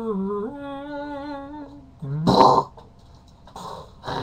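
A person's voice holding one long vocal note that steps up in pitch about half a second in, a try at the cartoon theme's intro voice. About two seconds in comes a short, loud, breathy outburst, with fainter breathy sounds near the end.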